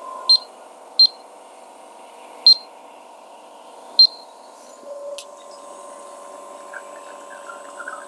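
The rotary pump of a Nook Mini dual-boiler espresso machine humming steadily while it pushes water through the puck during a shot. Over it, four short high beeps, from the buttons of the weighing scale under the cup, come in the first half.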